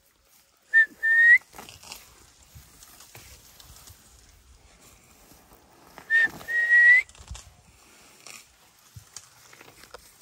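A clear two-note whistle, a short note and then a longer one that rises slightly at the end, heard twice about five seconds apart.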